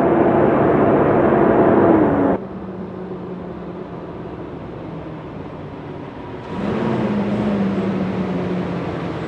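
Semi-truck running along the highway, its diesel engine and tyres making a steady drone. The engine tone dips slightly in pitch about two seconds in, then the sound cuts suddenly to a quieter, lower drone, which grows louder again about six and a half seconds in.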